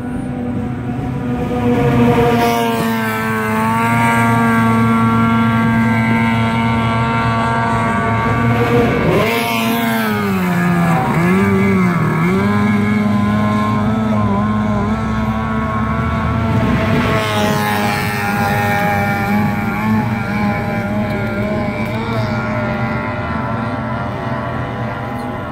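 Racing outboard motor on a speeding race boat, running flat out with a steady engine note. Near the middle, as the boat passes, the pitch dips and wavers twice, then settles again.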